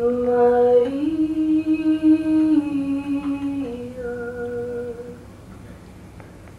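A woman's voice humming a slow, wordless melody of a few long held notes: it steps up about a second in, comes back down in two steps, and fades out about five seconds in.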